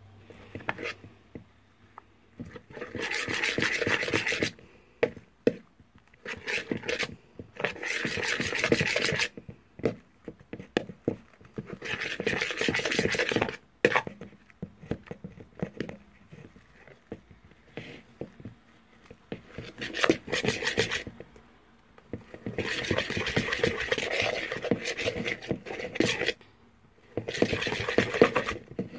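Glue-and-contact-lens-solution slime being stirred in a bowl: repeated stretches of rubbing and scraping a second or two long, with short pauses and scattered clicks between them.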